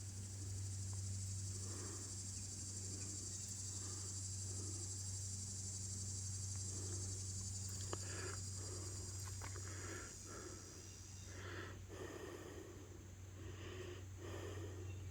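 Insects trilling outdoors in a steady high drone that stops about eleven seconds in, over a steady low hum and a few faint scattered knocks.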